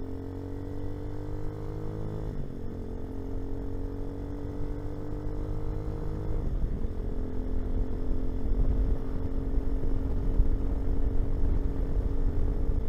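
Hawk 250 motorcycle engine accelerating through the gears: its pitch climbs, drops at an upshift about two seconds in and again about six and a half seconds in, then holds steady at cruising speed. Wind noise grows louder as the speed builds.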